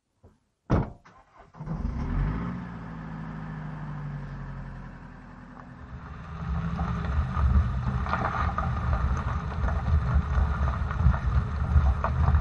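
A door slams shut about a second in, then a Mercedes Sprinter van's engine starts and runs. From about six seconds in the van rolls off, its tyres crunching over gravel.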